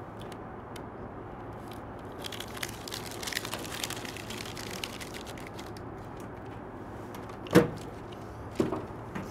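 Foil tape being pulled from its roll and laid along the seam of a thin, shiny sheet-metal light tube, with light crinkling and rustling. Two knocks from the tube being handled near the end, the first the louder.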